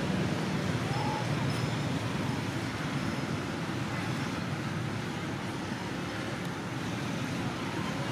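Steady low outdoor rumble with no single clear event.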